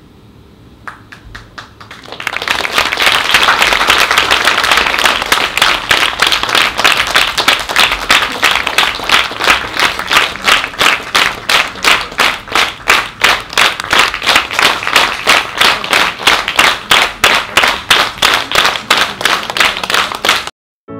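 Theatre audience applauding: a few scattered claps, then applause swelling about two seconds in and settling into rhythmic clapping in unison, a little over two beats a second. It cuts off suddenly near the end.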